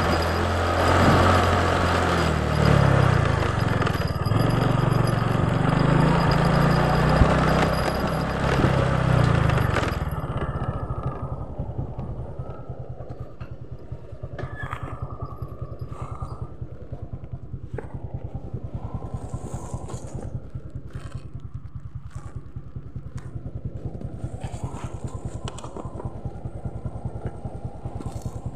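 Motorcycle riding with engine and wind noise, then slowing and stopping about ten seconds in. The engine keeps idling with an even, fast putter, with scattered clicks and rustles over it.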